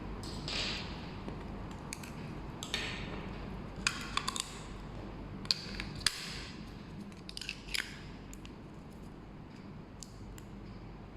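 Irregular clicks, light taps and short scrapes of small hard objects being handled, over a steady low hum. The clicks cluster in the first eight seconds and thin out after that.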